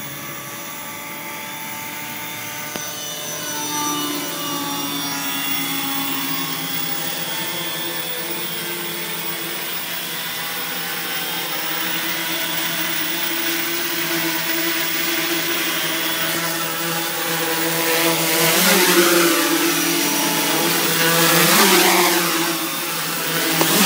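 Quadcopter's four brushless 2212 outrunner motors and propellers buzzing as it hovers low, the pitch of the motor tones shifting slightly as the motors adjust. The sound grows louder twice near the end, with a rushing noise over the buzz.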